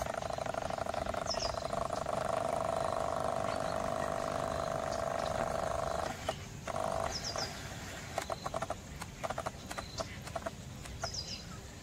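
Wetland wildlife: a steady pulsing trill that stops about six seconds in, followed by scattered short calls and a few high, quick chirps.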